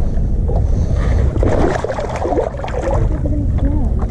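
Heavy low rumble of wind and water noise on a camera microphone held just above the water surface.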